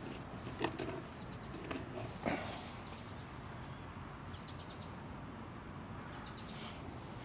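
Two light clicks of metal axle parts being handled and set in place, over a steady faint background, with a few short runs of faint, quick, high chirps.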